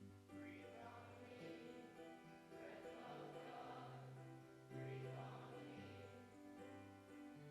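A hymn sung faintly by a group of voices with instrumental accompaniment, held notes over a bass line that changes pitch every second or so.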